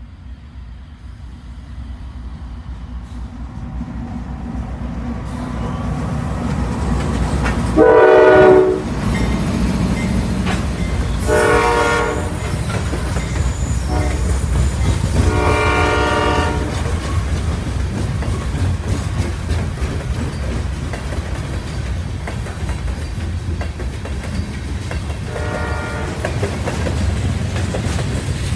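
CSX freight train led by two GE diesel locomotives, an AC44CW and an ES44DC, approaching with a low engine rumble that grows steadily louder. The horn sounds four times, the first blast about eight seconds in the loudest and the last, near the end, the shortest. The locomotives pass, then covered hopper cars roll by with a steady rumble.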